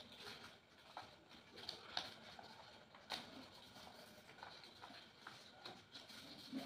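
Faint rustling and creasing of craft paper as sheets are handled and folded by hand, with a few soft, sharp ticks.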